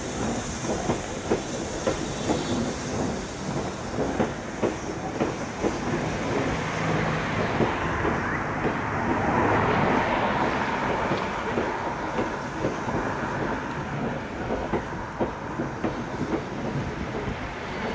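Railway passenger coaches rolling past close by, their wheels clicking over the rail joints in a quick, uneven clickety-clack under a steady rumble that grows louder for a moment about halfway through.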